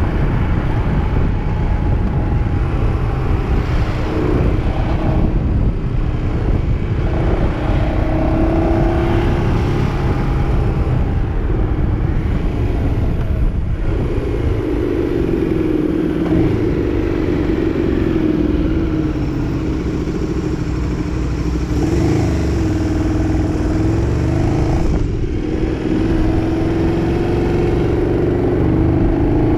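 KTM 1290 Super Duke R's V-twin engine running under way, its pitch rising and falling with the throttle, with a few brief breaks in the note.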